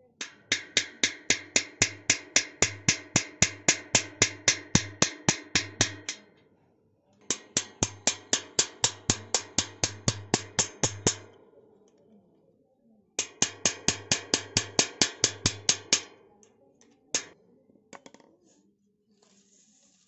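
Hammer tapping rapidly on a steel punch set against a rusted bicycle freewheel's threaded ring, about five sharp metallic blows a second. The blows come in three runs with short pauses between them and end with one lone blow. The punch is being driven against the ring to knock it loose.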